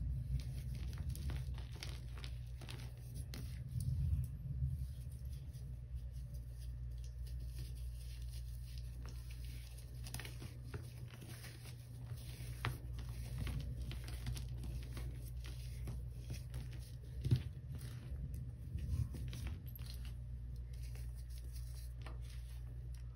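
Soft powdery chunks crushed and crumbled between fingers with long acrylic nails, crumbs falling onto a heap of powder: a continuous run of small crunches, crackles and patters over a steady low hum, with a louder crunch about four seconds in and a sharp crack past the middle.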